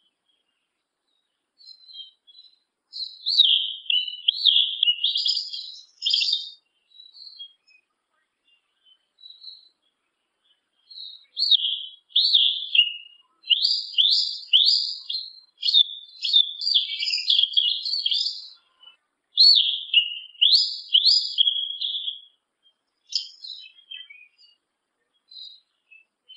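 Yellow-legged thrush (sabiá-una) singing: quick runs of high, clear warbled notes in two bouts. The first is short and the second longer, after a pause of a few seconds.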